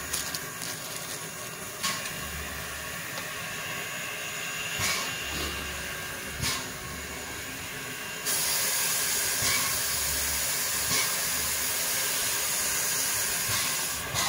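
Steam locomotive venting steam in a steady hiss, with a few brief knocks over it. The hiss grows louder about eight seconds in.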